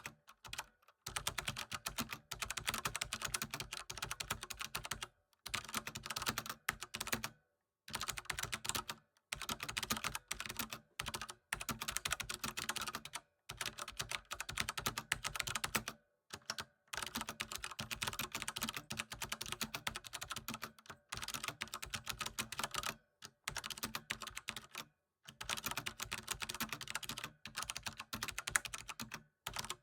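Fast typing on a computer keyboard: rapid runs of key clicks, broken every few seconds by brief pauses.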